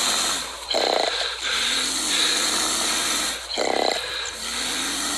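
A trapped bobcat growling and hissing, with two short louder outbursts, about a second in and again about three and a half seconds in. The cat is agitated and defensive in the cage.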